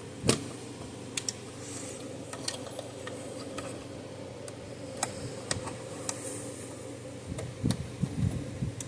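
Scattered small clicks and taps from hands handling parts, plugs and wires, with a few heavier knocks near the end, over a steady low hum.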